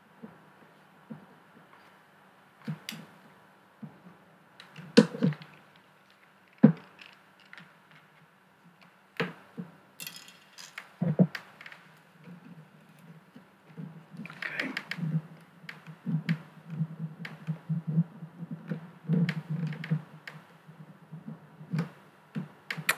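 Hand tools and fingers working on a SwissMicros DM42 calculator: scattered sharp clicks and taps of a small screwdriver against its plastic housing and keys. In the second half these turn into a busier run of clicking and scraping as the bezel plate is pried at.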